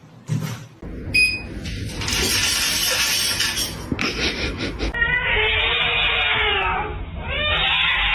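Cat yowling in two long, drawn-out calls, each rising and falling in pitch, after a burst of noisy sound in the first half.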